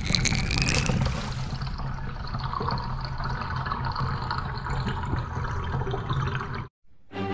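Water sound effect: a steady rush of water with a low rumble, hissy for the first second or so, cutting off suddenly near the end.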